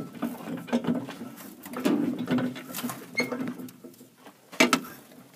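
A jack being worked to raise the truck body off its frame at the rear body mounts: irregular clicks, scrapes and creaks as the body lifts to free the old body mount bushings.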